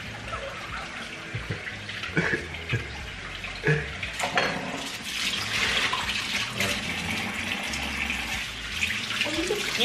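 Kitchen sink faucet running, water splashing steadily into the sink from about five seconds in, after a few light knocks and clinks at the counter.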